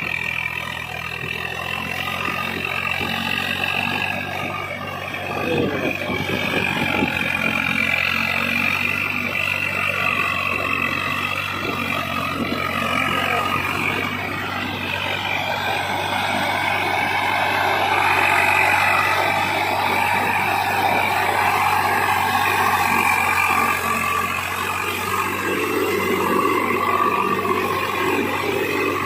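Swaraj 744 FE tractor's three-cylinder diesel engine running steadily as the tractor drives through wet, muddy field ground, a little louder past the middle.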